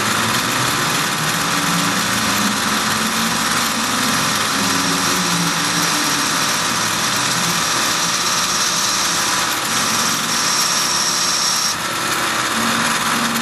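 Tormach PCNC 1100 CNC mill running steadily with its Duality lathe setup. A high, thin whine joins in about eight seconds in and cuts off abruptly a little before the end.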